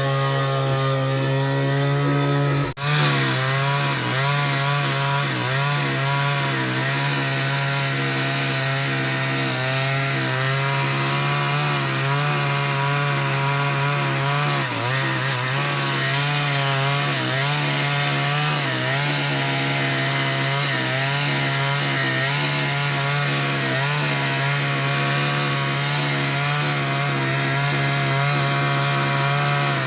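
Chainsaw engine running at high revs, cutting through wood, with slight wavering in pitch as the chain meets the wood. The sound breaks off for an instant about three seconds in, then carries on steadily.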